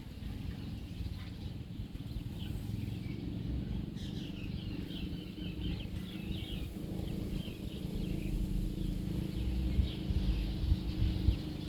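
Small birds chirping repeatedly over a steady low rumble, the chirps thickening from about a third of the way in.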